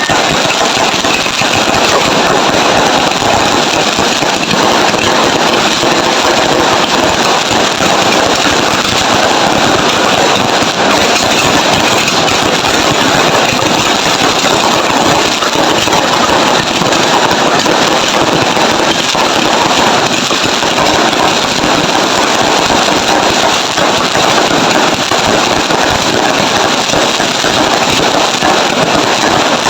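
Fireworks and firecrackers going off in a dense, unbroken barrage, a loud continuous crackling and popping with no pause.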